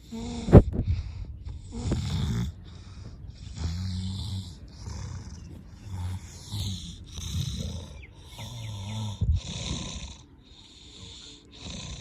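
Snoring: short, low snores repeating about once a second or a little slower. A sharp click about half a second in is the loudest sound, and a smaller one comes near the end.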